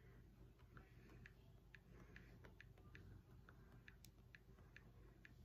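Faint, irregular clicks of one-finger typing on an iPad's on-screen keyboard, about two or three keystrokes a second.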